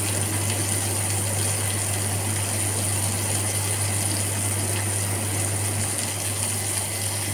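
Shrimp skewers sizzling on a hot stovetop grill pan as a steady, even hiss, over a steady low hum.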